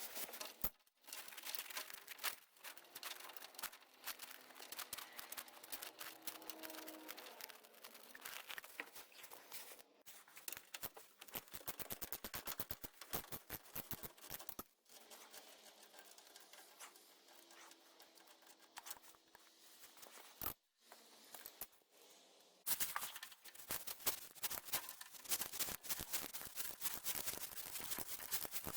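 Irregular runs of quick clicks and rattles, the densest about halfway through and again in the last few seconds.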